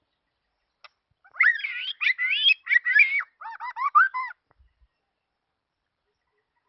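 A songbird singing one warbling phrase of about three seconds, made of quick notes that slide up and down, starting about a second and a half in.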